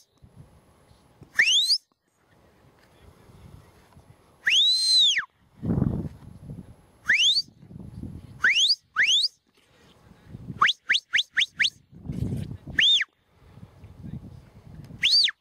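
Shepherd's whistle commands to a working sheepdog. There are single rising whistles, several long whistles that rise and then fall, and a quick run of five short rising pips a little past halfway.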